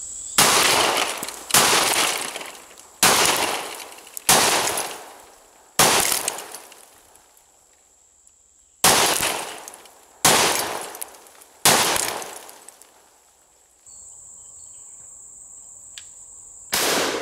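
Franchi SPAS-12 12-gauge shotgun firing 00 buckshot: five shots about a second and a half apart, a pause of about three seconds, then three more at the same pace, and one more shot near the end; each report trails off in echo over a second or two. A steady high insect buzz runs underneath.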